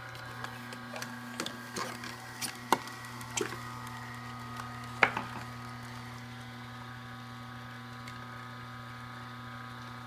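Horizontal masticating juicer's motor humming steadily as its auger crushes celery and cucumber pieces, with a run of sharp cracks and snaps, two of them loud at about three and five seconds in, which stop after about five and a half seconds while the hum carries on.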